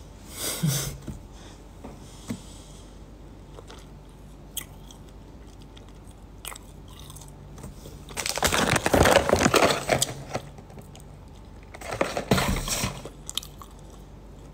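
A person biting and chewing crunchy food close to the microphone, in bursts: briefly about half a second in, loudest from about eight to ten seconds in, and again around twelve seconds in.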